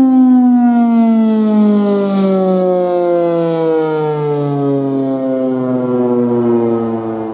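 Federal Sign & Signal Thunderbolt 1000 civil defense siren winding down: one steady tone falling in pitch as the siren slows, getting quieter and fading out near the end.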